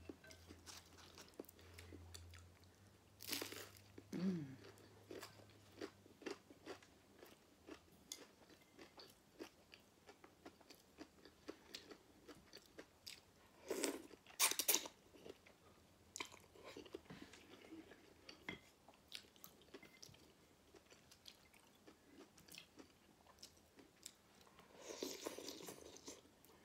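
Mouth sounds of eating: chewing and crunching on a crispy fried egg roll, with a loud slurp of udon noodles about halfway through.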